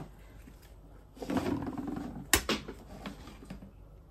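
Handling noise of hands and tools moving over the work mat at a soldering bench: a rustle for a couple of seconds, with a sharp click a little after two seconds in and a smaller one just after.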